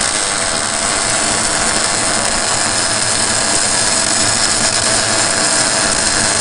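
Steady crackling hiss of a MIG (gas-shielded wire-feed) welding arc laying a bead.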